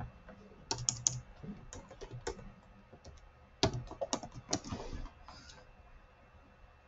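Typing on a computer keyboard: scattered keystrokes in short runs, stopping about three-quarters of the way through.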